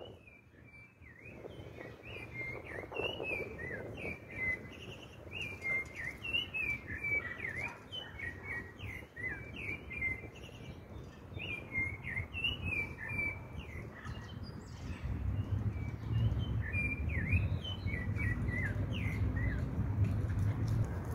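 Birds chirping: a run of many short, quick chirps that dart up and down in pitch, with a steady low rumble growing louder in the last few seconds.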